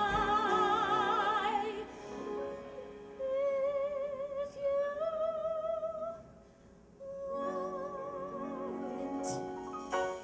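A woman singing the closing phrase of a Broadway show tune, holding several long notes with wide vibrato over piano accompaniment; the final held note stops near the end.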